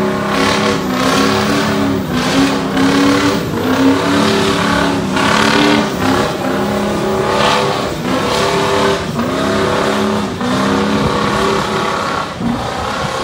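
Pickup truck engine at full throttle, dragging a weight-transfer sled in a truck pull. Its pitch repeatedly sags and climbs back as the engine labours under the load.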